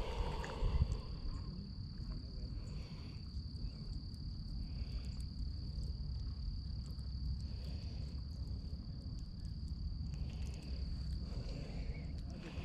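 An insect trilling steadily in one high, unbroken tone, with a low rumble underneath.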